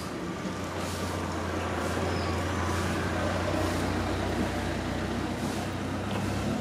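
A motor vehicle's engine running nearby: a steady low rumble that grows slightly louder through the middle and then eases.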